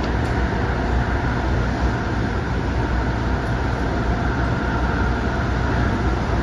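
MTR Adtranz-CAF electric multiple unit running at speed: a steady rumble of wheels on rail with a faint whine on top.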